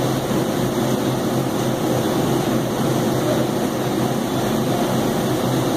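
Steady hum of a walk-in cooler's refrigeration unit running, an even machine drone with a low steady tone under it.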